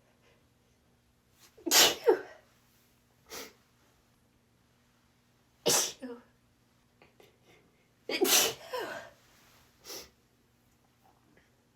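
A woman sneezing several times, loud sudden sneezes, some in quick pairs, with shorter, quieter sounds between them.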